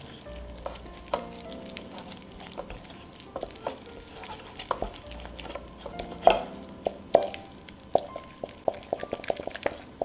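A wooden spoon stirring a thick flour-and-water sourdough starter paste in a stainless steel bowl, knocking and scraping against the metal. The knocks are irregular at first and come faster, several a second, near the end.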